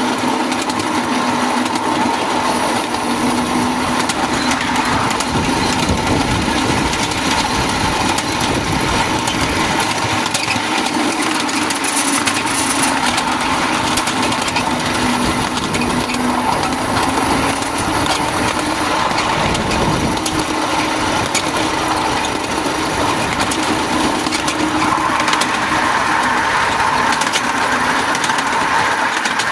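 Small-gauge railroad train running along the track: a steady rumble and rattle of the locomotive and its wheels on the rails.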